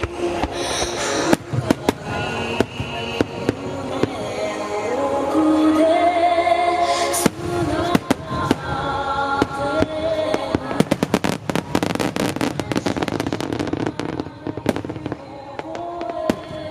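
Fireworks shells bursting over music with a singing voice. A dense, rapid run of bangs and crackles starts about eleven seconds in and lasts about three seconds.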